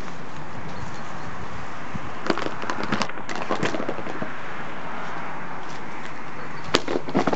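Footsteps of a person walking over rough, overgrown ground: scattered light steps and scuffs, busiest a couple of seconds in and again near the end, over a steady background hiss.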